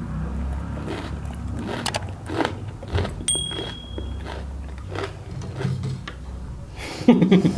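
Close-miked chewing and crunching of food, with repeated short crunchy bites. There is a brief high steady tone a little over three seconds in, and a voice starts near the end.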